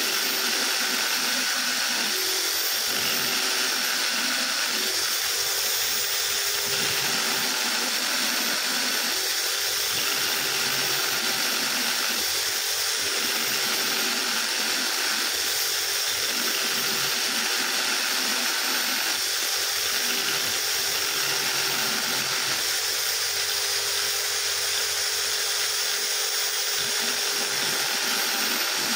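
Electric drill running steadily, spinning a small abrasive wheel against which a motorcycle camshaft lobe is held by hand and ground down to reshape the cam profile near its top.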